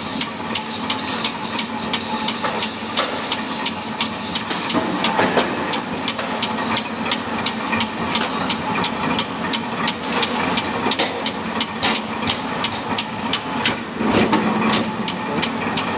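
Metal-cutting machine running with a steady hum and an even, rapid clicking or knocking, about three strikes a second.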